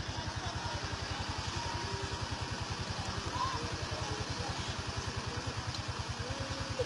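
A small engine idling steadily, a fast regular low throb.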